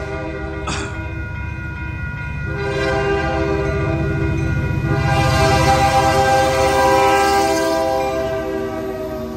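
Union Pacific diesel freight locomotives sounding their air horn, a chord of several steady tones, at a grade crossing: a shorter blast at the start, then one long blast from about two and a half seconds in that holds for most of the rest, over the low rumble of the locomotives' diesel engines, which grows as they draw level.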